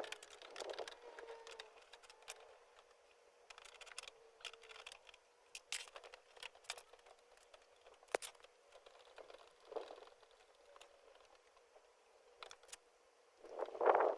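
Scattered clicks, taps and light clinks of hand tools and parts being handled while a Honda Zoomer scooter is taken apart, with a faint squeak early on and a louder rustle near the end.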